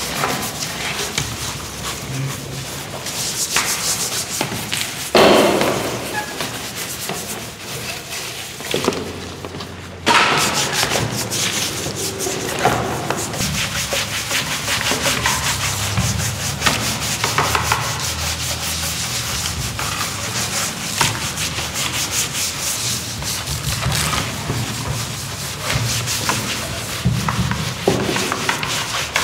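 Scouring pad scrubbing wet, soapy, rust-stained motorcycle body panels and frame parts: fast, rasping rubbing strokes. There is a single thud about five seconds in, and the scrubbing turns suddenly louder about ten seconds in.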